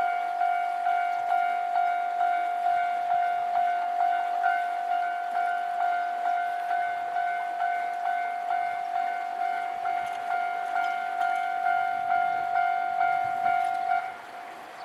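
Japanese railway level-crossing warning bell ringing in an even, rapid pulse of about two strokes a second. It stops abruptly about 14 seconds in, leaving a fainter steady tone.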